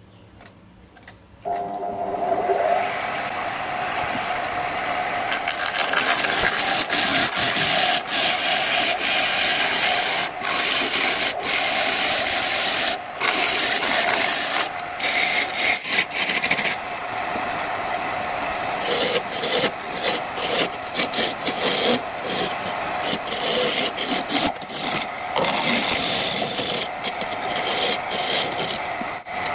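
Wood lathe starting up about a second and a half in, its motor running with a steady whine. A few seconds later a hand-held turning tool starts cutting the spinning wooden bowl: a loud, harsh scraping that breaks off briefly many times as the tool is lifted and set again.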